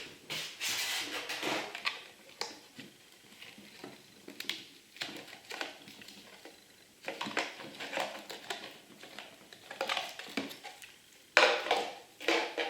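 Handling noises: irregular rustling with light clicks and knocks, as of packaging and small hard parts being handled, with the loudest rustle near the end.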